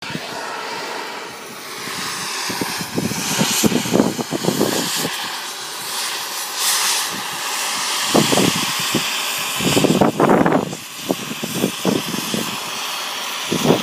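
Power tools running in short bursts, made up of rapid runs of clicks, while bolting together a stainless-steel feed bunk, over a steady hiss.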